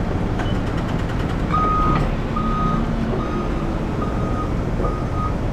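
A vehicle's reversing alarm beeps five times in an even rhythm, starting about a second and a half in, over the steady low rumble of a running engine.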